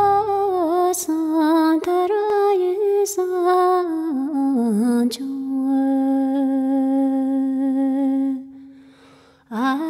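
A single voice sings a slow, ornamented melody with wavering pitch, then holds one long steady note that fades out after about eight seconds. After a short pause the singing starts again near the end.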